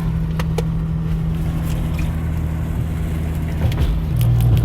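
Car driving, heard inside the cabin: a steady low drone of engine and road noise with a few light clicks. A deeper hum grows louder near the end.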